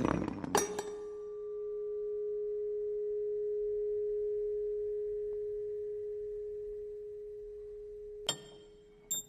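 A single steady ringing tone, like a tuning fork, that begins with a knock about half a second in, swells and then fades over about seven seconds. It is cut off by sharp metallic clicks of car parts knocking together near the end.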